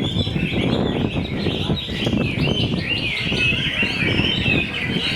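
Several Chinese hwamei singing at once in a contest, a dense tangle of overlapping warbled and whistled phrases, over a low background din.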